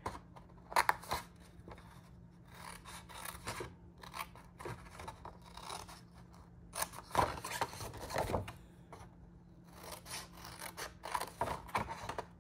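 Small scissors snipping through cardstock in short runs of cuts with pauses between them, trimming up along score lines.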